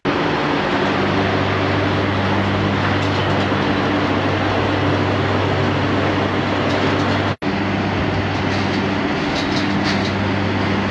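The engine of a small motorized three-wheeled cart running steadily under way, a loud, even engine note with a steady hum. It breaks off for an instant about seven seconds in.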